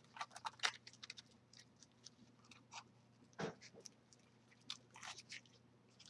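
Faint crinkling and rustling of craft cords and a paper bird cutout being handled while the cords are pulled through a knot loop: a scatter of short scratchy clicks, one louder about three and a half seconds in.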